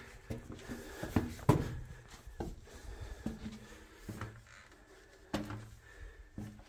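Footsteps and scuffs on rocky, gritty ground inside a narrow stone cave passage: irregular knocks about once a second, with a close, boxy echo.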